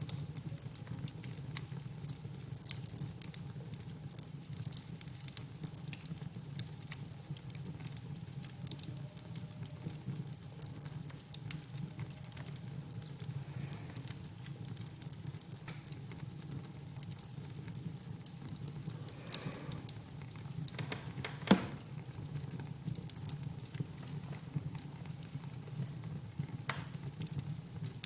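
Wood fire burning with a steady low rumble and scattered crackles, and one loud pop about three quarters of the way through.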